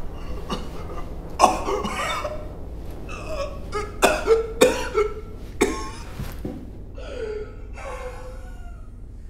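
A man coughing and retching in hard spasms: one sharp cough, then a quick run of three and another soon after, each with a short falling rasp, fading to weaker rasps toward the end. A steady low hum runs underneath.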